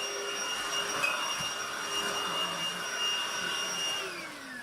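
Hoover cordless stick vacuum running with a steady high-pitched motor whine. About four seconds in, the motor stops and winds down, its whine falling in pitch.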